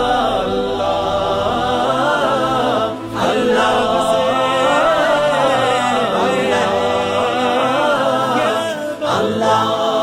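Background Islamic devotional song: several voices singing together in drawn-out melodic phrases, with brief pauses between phrases about three and nine seconds in.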